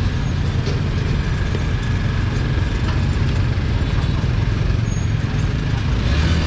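Steady low rumble of street traffic, with vehicle engines running close by and a few faint clicks and clatters.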